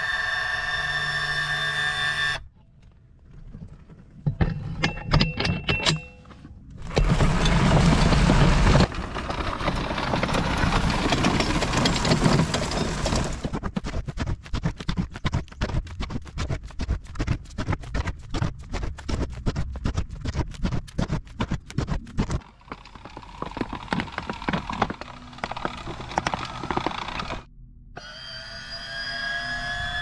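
Homemade remote-control tracked wheelbarrow at work in several short cuts. It gives a steady motor whine as the tub tilts, then stretches of rough scraping noise and a long run of fast rattling clicks, and the whine again near the end.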